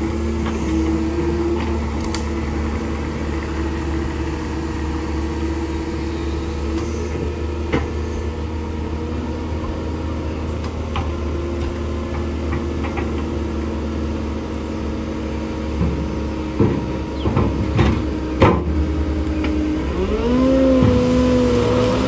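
Diesel engines of a Cat 308 mini excavator and a Cat 299 compact track loader running together, a steady engine hum with held tones. A few sharp knocks come in the second half, and near the end one engine revs up, its pitch rising.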